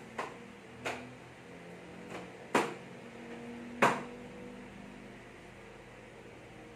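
Sharp knocks and clacks of items being handled and set down on a shelf rack, five in all, the loudest about two and a half and nearly four seconds in, over a faint steady hum.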